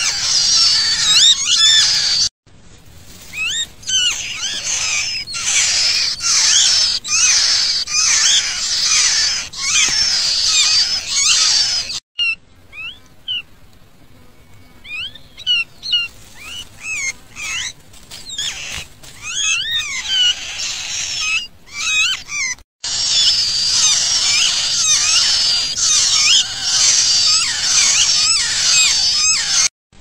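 Nestling songbirds calling to beg, a dense chorus of high-pitched chirps that slide rapidly up and down. It thins to scattered chirps for a few seconds about a third of the way in and breaks off abruptly several times.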